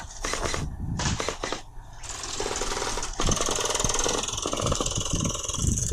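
Electric gel blasters firing on full auto, a fast mechanical rattle of shots. It is sparse and patchy at first and becomes louder and continuous from about three seconds in.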